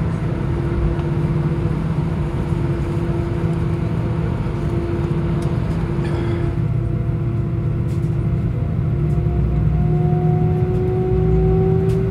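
Airbus A320's jet engines heard from inside the cabin while taxiing: a steady whine over a low rumble, the whine rising slightly in pitch near the end as the engines speed up.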